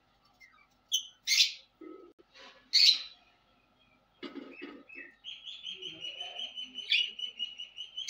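Small pet parrots calling: two loud, harsh shrieks in the first three seconds, then from about five seconds in a fast, steady run of repeated chirps.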